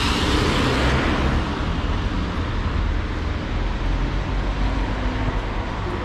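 Street traffic: a vehicle passes close, louder in the first second and then fading, over steady road noise and a low rumble.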